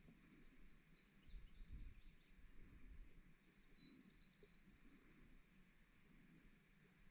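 Near silence outdoors with faint birdsong: short high chirps, then a quick trill a little past three seconds in that runs into a thin, high whistle held for about two and a half seconds. Faint low rumbles underneath, loudest between one and two seconds in.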